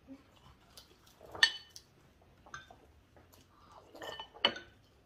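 Spoon clinking and scraping against ceramic bowls as sauce is scooped from the braised-fish pot into a bowl: a scattering of sharp, briefly ringing clinks, the loudest about a second and a half in and two more strong ones near the end.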